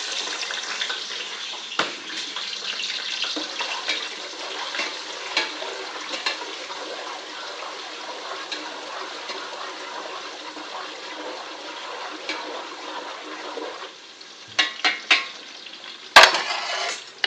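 Onions sizzling steadily in hot cooking oil, the sizzle dying down about fourteen seconds in. Then a few light knocks and one loud knock near the end.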